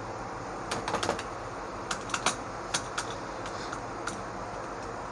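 Computer keyboard keys being pressed: a quick run of clicks about a second in, then several single presses, over a steady low hum.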